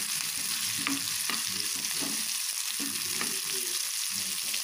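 Chopped onions sizzling in hot oil in a frying pan while a steel ladle stirs them, with a few light clicks of the ladle against the pan.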